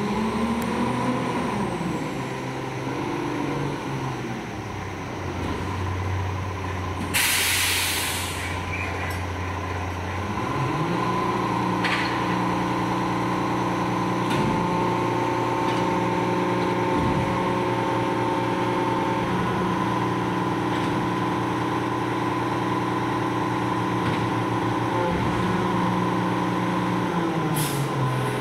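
Battle Motors LET2 garbage truck with a McNeilus rear-loader body pulling up, with one short, loud air-brake hiss as it stops. Its drive then rises in pitch and holds a steady hum for about fifteen seconds while the rear packer runs, drops away, and gives another short hiss near the end.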